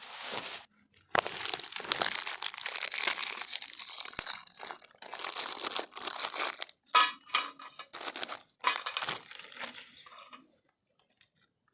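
Dense crinkling and crackling of dry material, in several bursts with short gaps, stopping about ten and a half seconds in.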